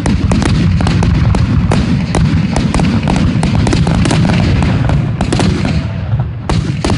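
Aerial fireworks shells bursting in a rapid, overlapping barrage: a dense stream of sharp cracks over continuous low booming rumble, easing briefly about five seconds in before more cracks.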